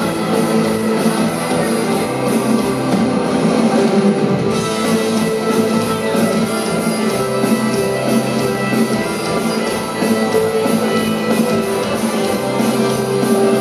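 Live rock band playing loud, driving music on electric guitars, bass guitar and drum kit, in a passage without vocals.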